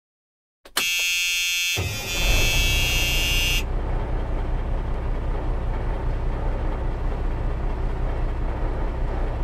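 Peterbilt dump trucks' diesel engines idling, a steady low rumble. A high buzzing tone sounds over it at first and cuts off suddenly about three and a half seconds in.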